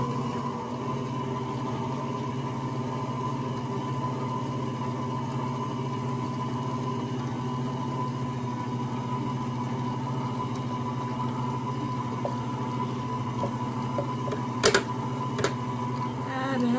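Electric stand mixer running at a steady speed, its motor humming evenly as it beats butter and sugar. A couple of sharp knocks come near the end.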